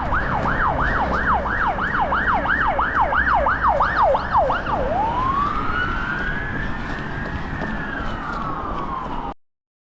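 Emergency vehicle siren: a fast yelp sweeping up and down about three times a second, then switching to one slow rising and falling wail, over a low steady rumble. It cuts off suddenly near the end.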